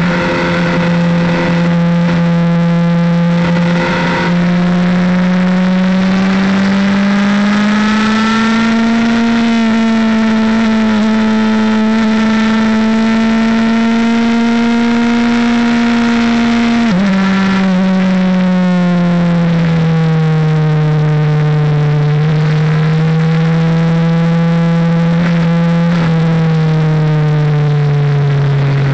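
Motorcycle engine running steadily at low revs in third gear. Its note rises slightly and holds, drops abruptly about 17 seconds in, then sinks lower as the bike slows to a stop in neutral.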